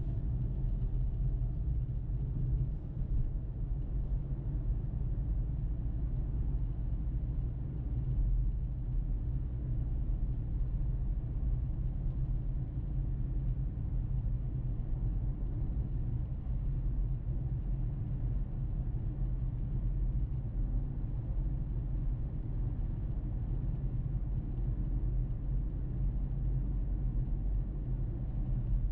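Steady low rumble of a car being driven: road and engine noise, even and unchanging.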